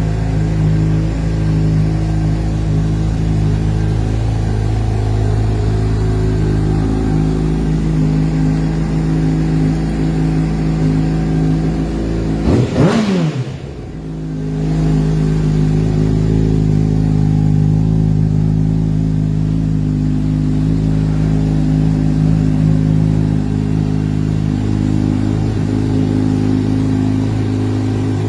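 Honda CBR600RR's inline four-cylinder engine idling through an aftermarket performance exhaust, with one quick throttle blip about halfway through: the pitch rises sharply and falls straight back before settling to a steady idle again.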